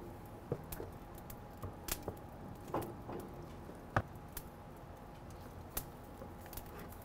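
Faint scattered crackles and soft taps from a lump-charcoal and oak-wood grill fire, with a few soft knocks as thick raw ribeye steaks are set down on the grill grate; one louder click about four seconds in.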